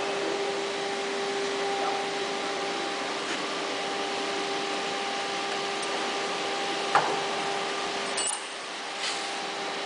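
Steady machine hum with a constant tone from the idle PADE 5-axis CNC woodworking centre, which is not cutting. There is a single sharp knock about seven seconds in as the wooden board is handled on the machine's suction-pod table.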